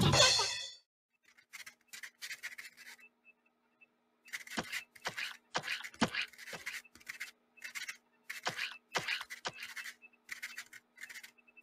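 Pen scratching on a clipboard in quick, irregular strokes: a cartoon writing sound effect over a faint steady hum.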